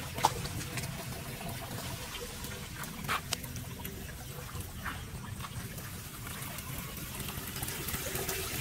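Runoff water trickling into a street storm-drain grate, with scattered small drips and clicks and one sharp click just after the start.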